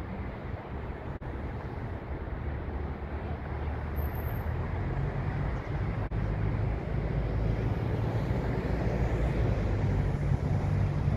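Steady road traffic: a low rumble of engines and tyres from vehicles crossing a road bridge, growing slightly louder toward the end.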